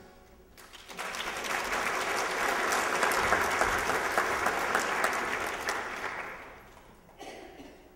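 Audience applauding: clapping starts about a second in, holds steady, then dies away after about six seconds.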